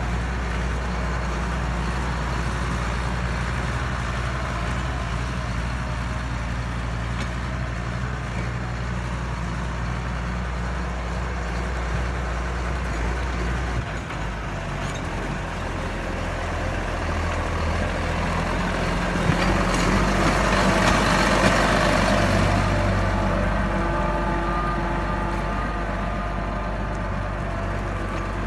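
Case IH 7210 Magnum tractor's six-cylinder diesel engine running steadily as the tractor drives. It grows louder in the second half, loudest about two-thirds of the way through, then eases off.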